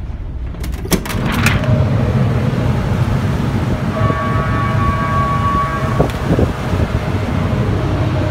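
A door clicks open about a second in, and the low, steady rumble of the towboat's diesel engines grows louder, mixed with outdoor noise; a steady tone sounds for about two seconds midway.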